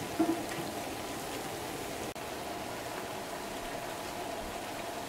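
Rice-batter vadas deep-frying in hot oil: a steady sizzle and crackle of bubbling oil around the fritters.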